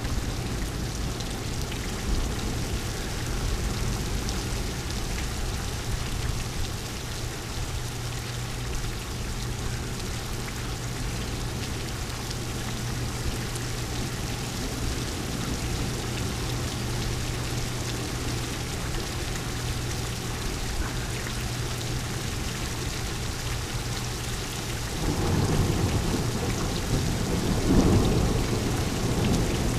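Steady rain falling in a thunderstorm, with a low rumble of thunder swelling near the end.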